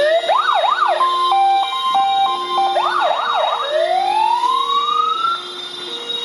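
Fire engine's electronic siren switching between modes: a fast up-and-down yelp, a high-low two-tone, the yelp again, then one long rising wail that cuts off about five seconds in. Under it, a lower two-tone siren alternates steadily throughout.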